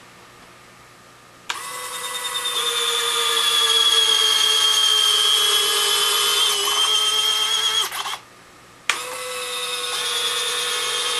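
Small DC gear motor of an electric jack-screw retract actuator running with a steady whine for about six seconds as it swings the landing-gear strut up, then stopping abruptly when the actuator reaches its end of travel. After about a second's pause it starts again to drive the gear back down.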